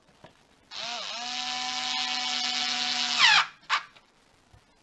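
Small electric screwdriver driving a Torx screw into the fascia of a Mercedes NTG2 Comand unit: a steady motor whine for about two and a half seconds, its pitch changing just before it stops as the screw seats, then a short second burst.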